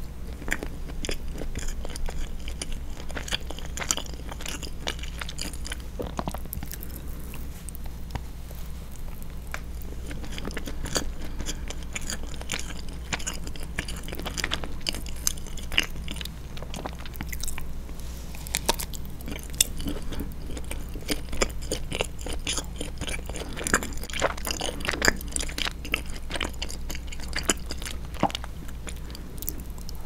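Close-up biting and chewing of a chocolate-coated fondant chocolat cake, with many short wet mouth clicks throughout.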